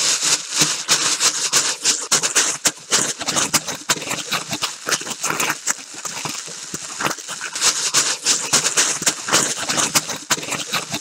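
Plastic sheeting being crumpled and handled: a dense, irregular crinkling crackle of many sharp clicks, somewhat softer midway.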